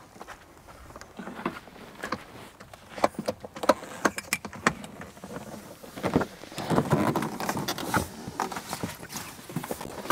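Irregular knocks and clunks of someone climbing a telescoping metal ladder while carrying a portable air conditioner up into a rooftop tent, busiest in the second half.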